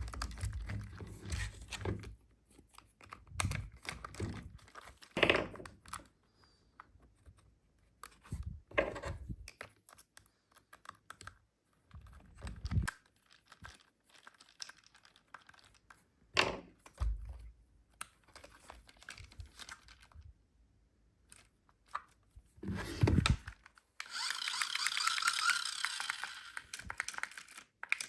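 Hands unpacking a boxed toy RC car: scattered plastic clicks, knocks and crinkling packaging with quiet pauses between, then a rasping sound about three and a half seconds long near the end.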